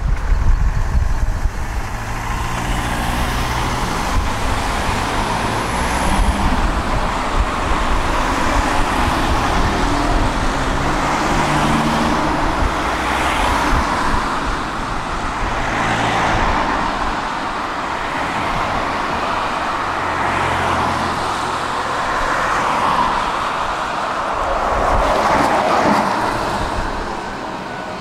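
Tram in motion: wheels rolling on the rails in a continuous rumble that swells and fades, with an electric motor hum whose pitch shifts in steps as it gathers and sheds speed.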